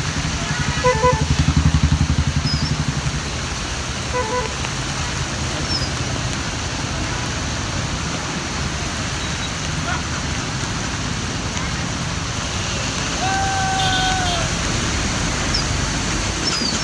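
Steady rain and road traffic noise, with a heavy vehicle's engine rumbling past in the first few seconds. Short vehicle horn toots come about one and four seconds in, and a longer horn note near the end.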